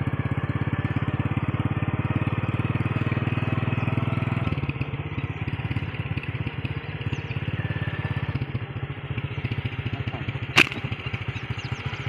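A small engine running steadily with an even, fast pulsing beat, quieter from about four seconds in. Near the end comes one sharp snap: a slingshot being fired.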